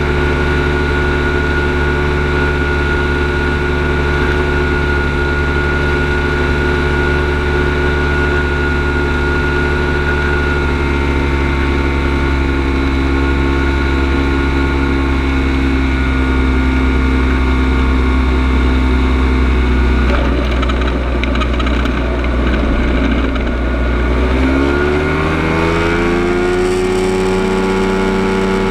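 Ultralight aircraft's engine and propeller running steadily at low power, then the engine speed rises about 25 seconds in and holds at the higher pitch.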